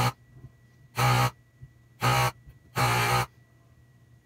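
Vacuum pump of an Aoyue 8800 desoldering gun triggered in four short buzzing bursts about a second apart, the last one longest, sucking molten solder off a circuit board joint through the heated nozzle.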